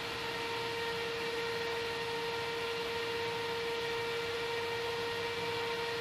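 Computer CPU fan running steadily: an even whoosh of air with a constant hum.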